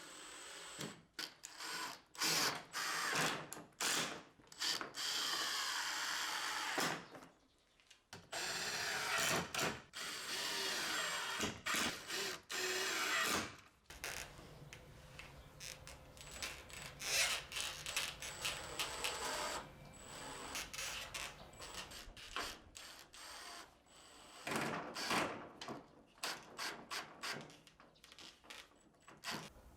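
Handheld power tool running in repeated stop-start runs of a second or several, with short pauses between.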